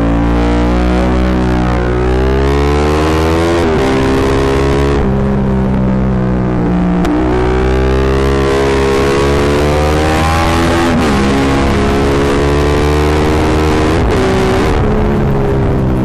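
Yamaha MT-07's parallel-twin engine through a full Akrapovic exhaust under hard riding: the revs climb and fall several times, with brief dips between pulls. The sound is loud and distorted, overloading the microphone.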